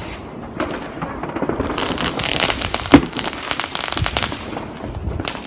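New Year's Eve fireworks and firecrackers going off all around: a dense run of sharp cracks and bangs, thickest in the middle, with one loud bang about three seconds in.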